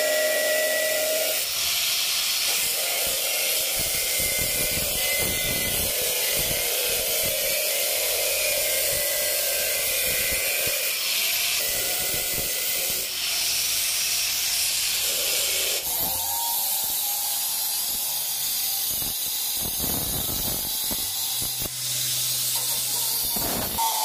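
Electric angle grinder's cutting disc slicing through galvanised steel cable trunking, cutting notches for an offset bend. A steady, loud abrasive hiss rides over the motor's whine, and the sound changes about two-thirds of the way through as the cut moves on.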